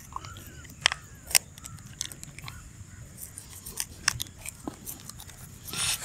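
Wet clicking and smacking as a toothbrush scrubs a Rottweiler's teeth and the dog licks at the paste. Two sharper clicks come about a second in, and a short rasp near the end.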